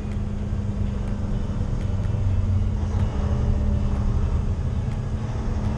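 Volvo VNX 300 day-cab truck driving at road speed, heard from inside the cab: a steady low diesel drone with a constant hum, growing a little louder about two seconds in.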